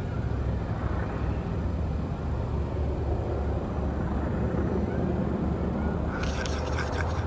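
Steady low engine rumble of vehicles moving along the road. About six seconds in there is a brief rapid clatter.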